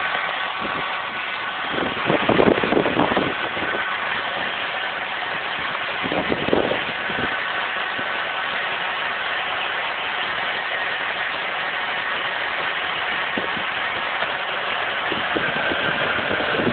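Toyota Ipsum's 2AZ four-cylinder engine running with a faint steady whistle, which the owner cannot place between the automatic transmission and the engine. Two brief louder surges come about two and six seconds in.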